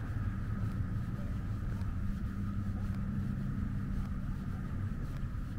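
A steady low engine drone that keeps the same pitch throughout.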